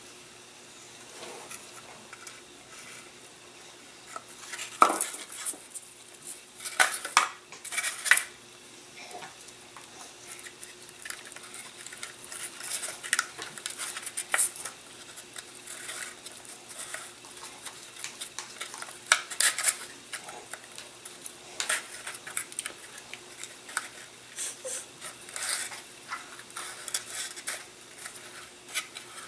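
Thin wooden model-aircraft kit parts being handled and fitted together on a worktable: irregular light clicks, taps and scrapes of wood on wood and on the table top, loudest a few times near the start and about two-thirds of the way through.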